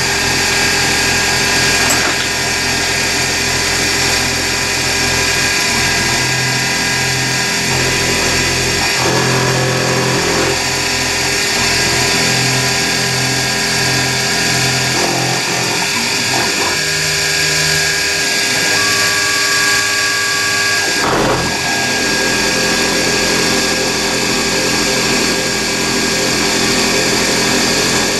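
CNC mini milling machine with a small end mill cutting aluminium: a steady spindle whine over a continuous cutting noise that changes as the cutter moves through the block. A single sharp knock about three quarters of the way through.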